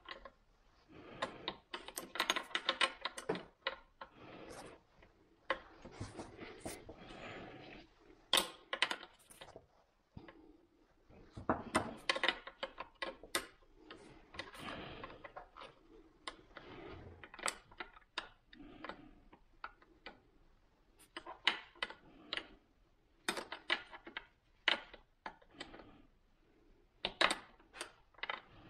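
Irregular light clicks, metal taps and rustling from gloved hands working a hydraulic trim hose and its metal fitting into the back of a Volvo Penta SX Cobra gimbal housing.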